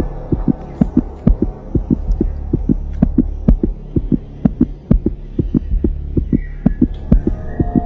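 Background score: a deep, evenly spaced pulsing beat, about four thumps a second, over a steady low hum.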